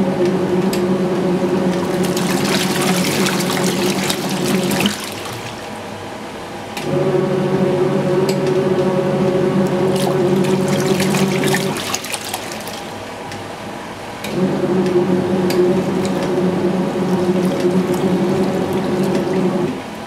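Kuppet portable washing machine agitating a wash load: the motor hums as the pulsator spins in three runs of about five seconds each, stopping for about two seconds between them, over a steady swish and slosh of soapy water.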